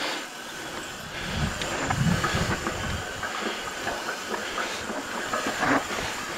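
Mountain bike rolling down a rock-slab trail: tyre rumble and rattling knocks from the bike over the rock, under a steady hiss. The rumble is heaviest about one and a half to three seconds in.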